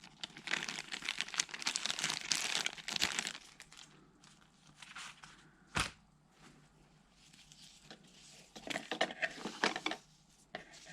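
Packaging crinkling and tearing as a camera strap is unwrapped, in two spells with a quieter stretch between them and a single sharp click about six seconds in.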